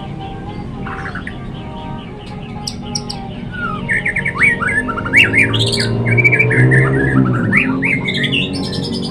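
White-rumped shama singing a fast, varied song of chirps, whistles and trills, sparse at first and much busier from about four seconds in.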